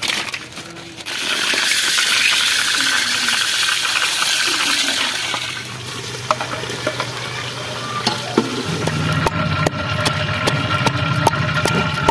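Outdoor cooking sounds: a steady hiss of water or frying for the first few seconds, then a low hum under a run of sharp clinks and knocks from pots and utensils.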